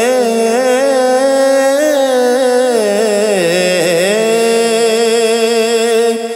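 A man singing a naat, holding a long ornamented note that glides and wavers over a steady droning tone. It gets quieter near the end.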